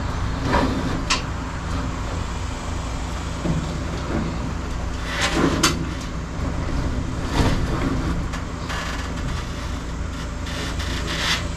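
12-2 electrical cable being fed by hand through holes in wooden ceiling joists: a few short rustles and scrapes of the cable over a steady low mechanical hum.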